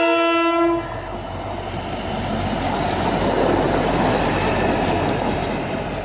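Horn of a CSM 922 diesel track-tamping machine sounding one steady note, cutting off a little under a second in. Then the machine's diesel engine and its wheels on the rails grow louder as it passes close by, fading near the end.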